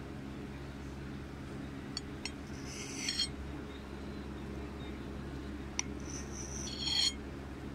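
A knife cutting a soft brownie on a ceramic plate, the blade clinking and scraping against the plate about three seconds in and again near the end, with a few light clicks between, over a steady low hum.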